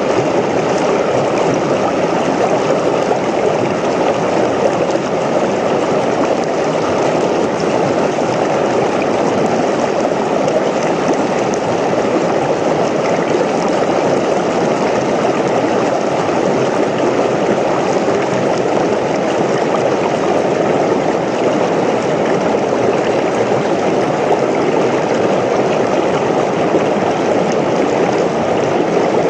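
Creek water rushing steadily over rocks.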